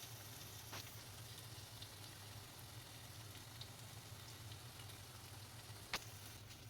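Faint steady sizzling of food frying in oil in a pan, with a sharp click about six seconds in.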